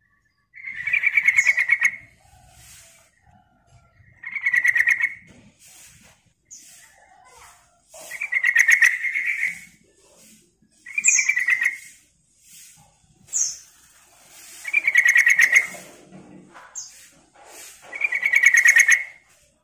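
Yellow-vented bulbul singing: about six short, fast-trilled phrases spaced a few seconds apart, each opened by a brief high note.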